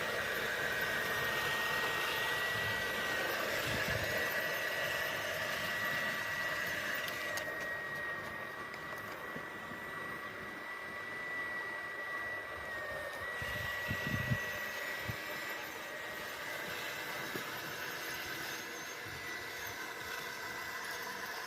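A small electric motor whining steadily at a high pitch, the pitch stepping slightly now and then, with a few low knocks about two-thirds of the way through.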